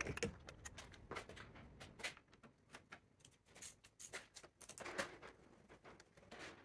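Faint, scattered clicks and light knocks of hand-tool work at the top of a car's front grille.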